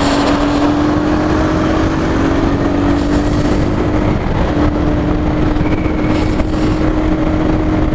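A two-wheeler's engine running at a steady cruise while riding, its note holding nearly constant, under a heavy rush of wind on the microphone.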